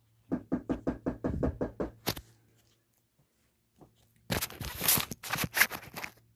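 Knocking on a door: a run of about eight quick knocks, then after a pause a second, louder round of banging.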